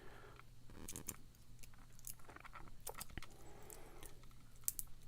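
Lock pick and tension wrench working the pins of a tight pin-tumbler lock: faint scattered ticks and light scraping, with a sharper click near the end.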